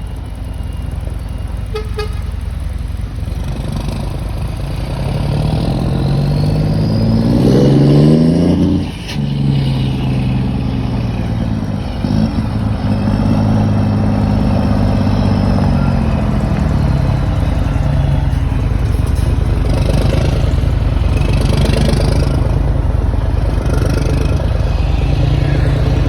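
Scania truck's diesel engine and exhaust running, revving up over a few seconds, dropping briefly about nine seconds in, then holding high revs before easing back to a steady run.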